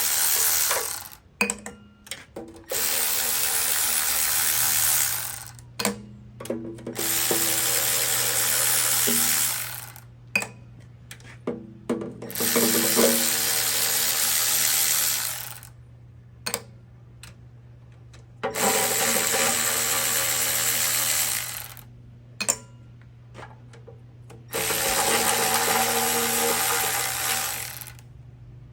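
Cordless power tool spinning out the oil pan bolts of a Chevy 350 engine one after another: six runs of about three seconds each, with short pauses and small clinks between.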